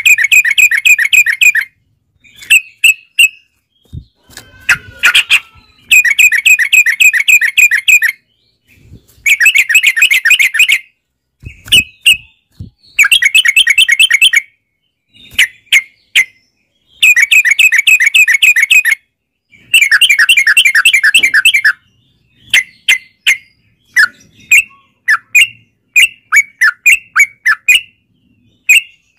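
Yellow-vented bulbul (trucukan) singing loudly in rapid rolling trills. Runs of fast repeated notes last a second or two at a time and alternate with short single chirps. From about two-thirds of the way in, the song breaks into scattered chirps.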